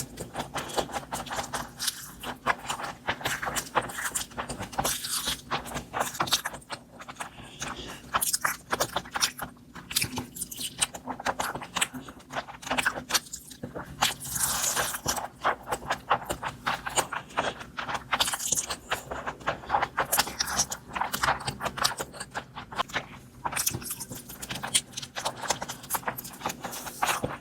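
Close-miked eating of chow mein and spicy chicken: a continuous stream of quick, irregular wet clicks and crunches from chewing, broken by a few brief pauses.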